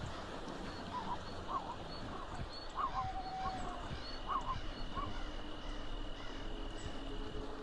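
Massed wildebeest herd calling: several short, nasal, honking grunts in a row over a steady background noise of the herd.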